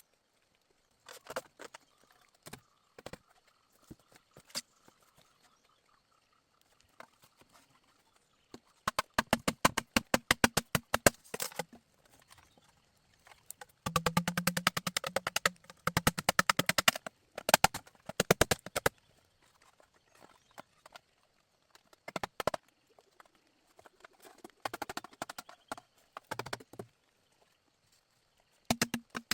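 Bamboo being struck with a tool, giving rapid runs of hollow wooden knocks that last a few seconds each, with single strikes between the runs.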